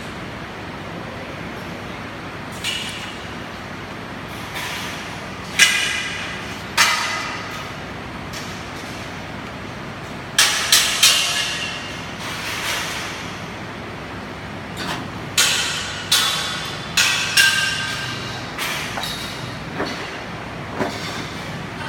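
Irregular sharp metal-on-metal clanks on steel, some coming in quick groups, each ringing briefly, over a steady workshop hum.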